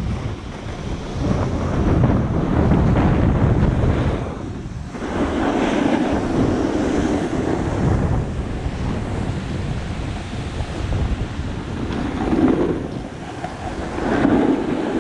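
Wind buffeting a helmet-mounted action camera's microphone while skis hiss and scrape over packed, groomed snow at speed. The rush swells and eases as the skier moves downhill.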